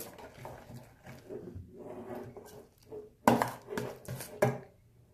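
Metal spoon stirring borax-activated glue slime in a stainless steel bowl, scraping against the bowl, then three sharp knocks about three seconds in.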